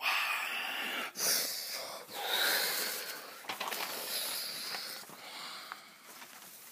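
Breathy hissing and whooshing sound effects made by a child's mouth, in several bursts that fade away, with some light rustling of paper.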